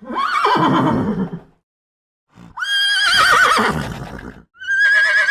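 An equid whinnying: three high, quavering calls that drop in pitch, each cut off abruptly by a short dead silence.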